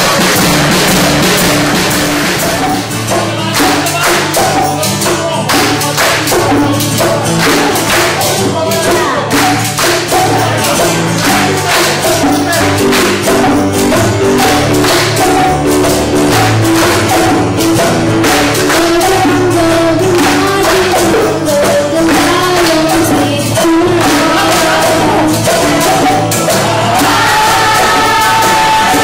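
Live music from a group of children and adults: drums and a tambourine keep a steady, busy beat while many voices sing along.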